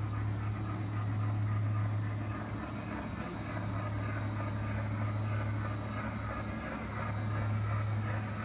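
G-scale model Big Boy steam locomotive running along the track toward the microphone: a steady low hum with a rough hiss over it.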